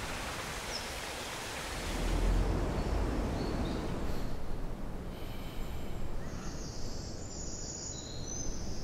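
Outdoor ambience: a steady rushing noise, with faint high chirps in the second half.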